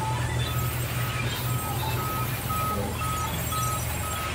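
Background music: a short high note repeating about three times a second over a steady low drone.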